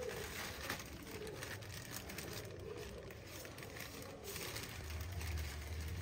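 Plastic bag crinkling and rustling over a hand as it works in around a washing machine's drive belt and pulley, with faint scattered handling clicks. A low hum comes in about five seconds in.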